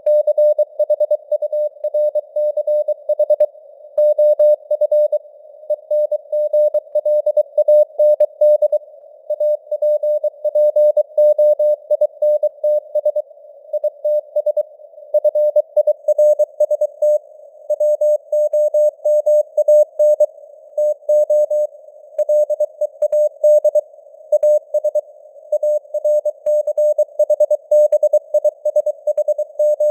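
Morse code sent as a single mid-pitched tone keyed rapidly on and off at 23 words per minute, spelling out news headlines. A faint hiss of simulated radio noise fills the gaps between characters.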